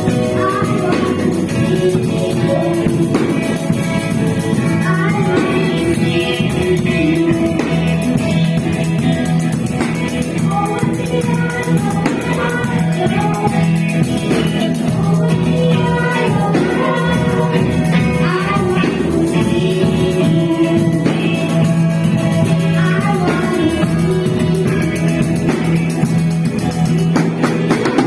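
Christian worship song sung by a group of voices over instrumental backing, with a fast steady percussion shimmer running underneath.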